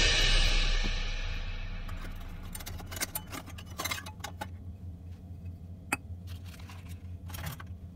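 Background music fading out, then a few light metal clicks and clinks, with one sharper clink about six seconds in as a stainless steel measuring cup is set down in a stainless steel mixing bowl.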